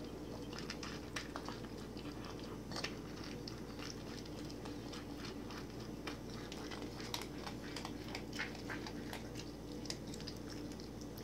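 Small dog (pug–chihuahua mix) eating dry kibble off the floor fast: irregular crunches and quick clicks of chewing and snapping up the pieces, over a steady low hum.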